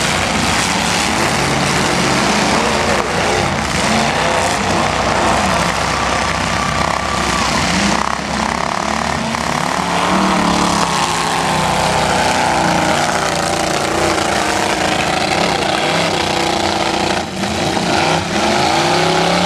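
Several demolition derby trucks' engines revving hard under load as the trucks shove against each other, the pitch rising and falling as the drivers work the throttle.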